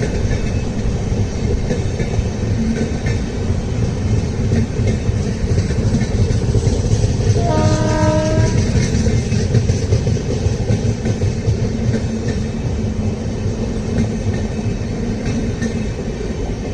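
Double-decker LHB passenger coaches rushing past at speed: a loud, steady rumble with fast wheel clatter on the rails. A train horn sounds for about a second halfway through. The rumble eases slightly near the end as the last coach goes by.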